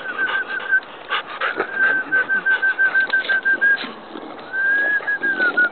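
Bulldog puppy whining in quick runs of short, high notes at a steady pitch, about five a second, with one longer whine that rises and falls near the end.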